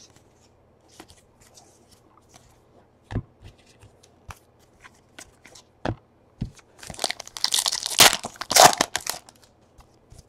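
Baseball cards handled with scattered light clicks and taps, then, about seven seconds in, a Donruss card pack's foil wrapper torn open and crinkled for a couple of seconds.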